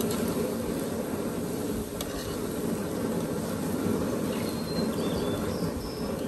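Chopped garlic frying in a pot of hot vegetable oil: a steady, dense sizzle and bubbling as a wire skimmer stirs it, with one light click about two seconds in.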